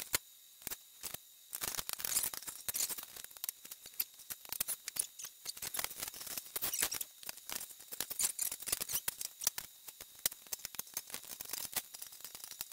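Many quick small clicks, taps and scrapes of metal parts being handled and fitted together: the wire grille and sheet-metal housing of a vintage GE radiant heater being reassembled. The clicking thickens about two seconds in.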